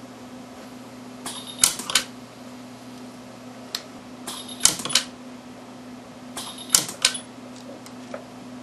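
Orion 200i micro TIG pulse welder firing weld pulses on 14 karat gold: three times a short hiss is followed by two sharp snaps about a third of a second apart. A steady low hum runs underneath.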